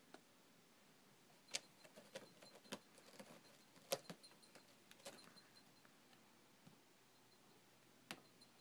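A cat clawing a carpeted cat-tree post: a cluster of faint scratches and ticks, loudest about one and a half, four and five seconds in, with one more tick near the end, over near silence.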